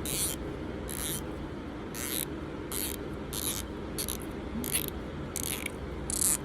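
Cotton swab dipped in rubbing alcohol scrubbing down inside a vintage lighter's metal case, a dry scraping stroke about every two-thirds of a second.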